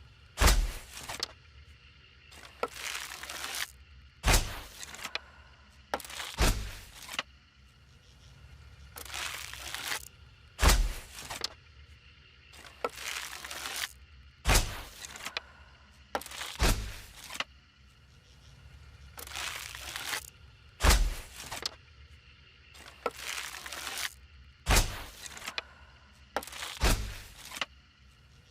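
Bow-and-arrow shot sound effects repeated about a dozen times, roughly every two seconds: each is a short swelling whoosh that ends in a sharp crack with a low thunk.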